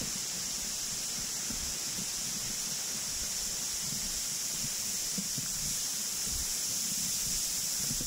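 Steady high-pitched hiss of outdoor forest ambience near a stream, with irregular low rumbles of handling and wind on the microphone as a 360 camera is carried along a path.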